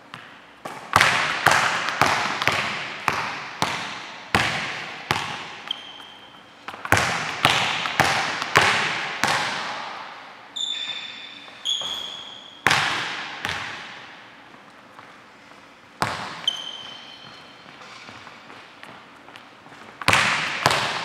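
Basketball bouncing hard on a hardwood gym floor, each bang echoing in the large hall, in uneven runs with a long lull past the middle. Sneakers squeak briefly on the court a few times.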